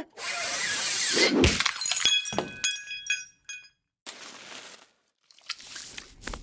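Glass breaking: a loud noisy crash, then a run of sharp clinks with ringing tones about two seconds in, followed by a few softer bursts of noise.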